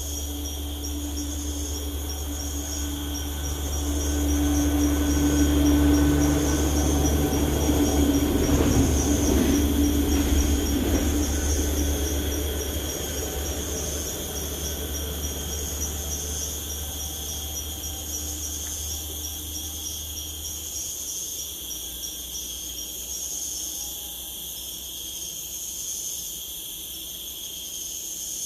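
Insects chirring steadily and high-pitched, with a low rumble and hum that swells about four seconds in and fades away by about twelve seconds.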